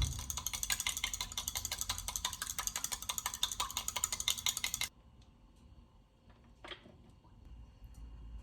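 Rapid, even mechanical clicking, many clicks a second like a ratchet or gears turning, which stops abruptly about five seconds in; a single soft knock follows a couple of seconds later.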